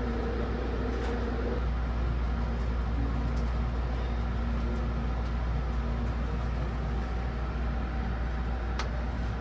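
Steady low hum inside the passenger car of a Thunderbird limited express electric train standing at the platform, with its air conditioning and onboard equipment running. A fainter steady tone drops out about a second and a half in.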